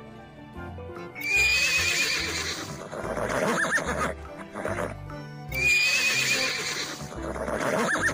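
A horse whinnying twice, the same long neigh about a second in and again halfway through. Each starts high and wavering, then drops into a lower shaking call. Background music plays underneath.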